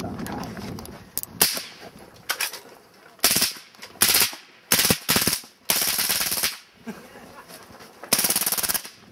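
LM7 belt-fed .22 LR machine gun firing on full auto in a string of short bursts, about eight in all, the longest lasting close to a second, near the middle and again at the end.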